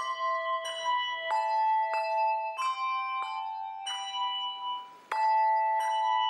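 A handbell choir playing a melody on brass handbells, each note struck about every half second and left ringing. The sound dies away just before five seconds in, then a louder, fuller chord rings out.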